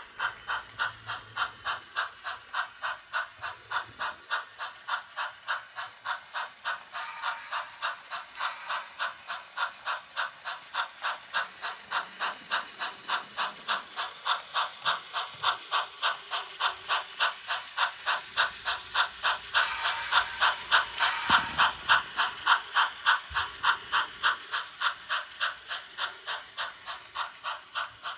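Sound-equipped HO scale 4-4-0 steam locomotive model chuffing steadily as it runs, with even, rapid exhaust beats over a steam hiss.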